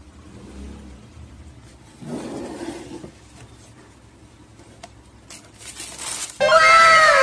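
Cardboard shoe box lid scraping open and tissue paper rustling as it is pulled back. Near the end a sudden, louder added sound effect comes in: several tones at once, each gliding downward.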